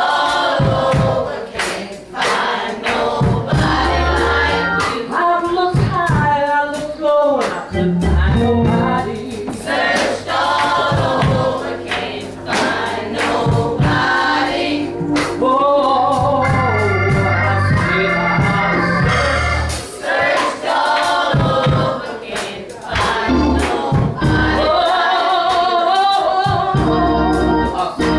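Gospel choir of women singing with a lead voice, over instrumental backing with a low bass line and sharp, regular beats.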